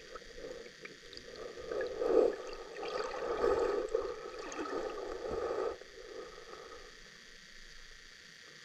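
Creek water heard underwater through a waterproof camera housing: a muffled gurgling wash with a few faint clicks. It swells about a second and a half in and cuts off suddenly near six seconds, leaving a low hiss.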